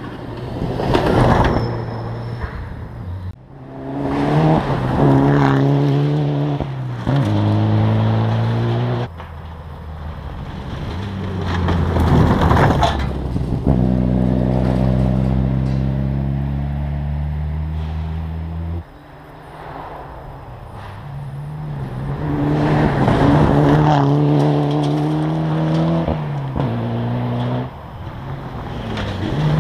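Rally cars passing one after another at speed on a dirt forest stage, engines revving hard and climbing through quick gear changes, tyres crunching over gravel. Between passes, an engine fades off into the distance before the next car approaches.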